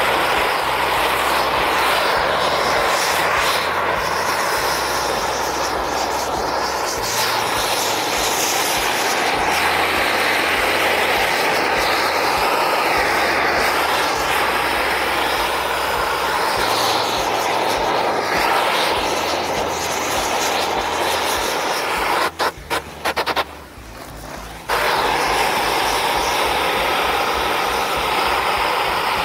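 Hose-fed propane torch burning with a steady roar as its flame is played over pine planks to char the surface. Near the end the roar stutters and cuts out for about two seconds, then comes back.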